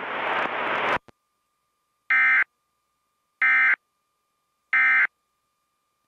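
Three short bursts of Emergency Alert System SAME digital data tone, a rapid two-tone warble, about 1.3 s apart: the End of Message signal that closes an EAS warning broadcast.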